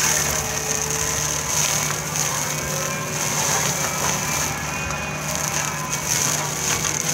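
Mini excavator's diesel engine running steadily under load while its hydraulic brush-mulcher head spins and shreds scrub and dry grass. A steady high whine sits over the engine's low hum, with continuous grinding and crackling of cut vegetation.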